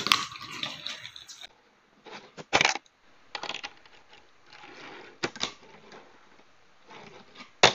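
Fingerboard (miniature skateboard) rolling and clacking on a hard table and a small ramp: the wheels roll with a soft rumble, broken by sharp pops and landings. The loudest clack comes about two and a half seconds in, with others about three and a half and five seconds in and one near the end.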